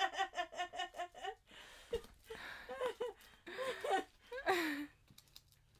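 A woman laughing in quick rhythmic bursts, then breathy giggles and gasps that trail off near the end.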